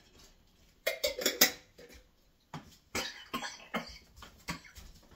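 A man coughing in fits, choking after something went down the wrong pipe: a cluster of coughs about a second in, then a run of separate coughs through the second half.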